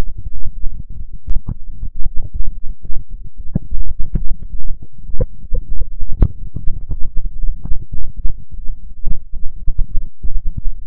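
A loud, distorted low rumble, broken throughout by irregular crackling pops.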